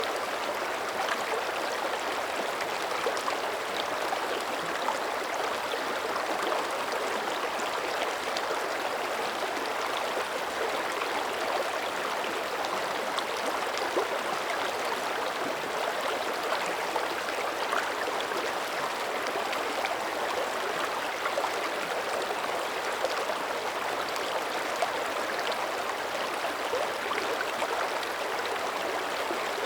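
Mountain creek flowing steadily: an even rush of running water with fine splashes and gurgles throughout.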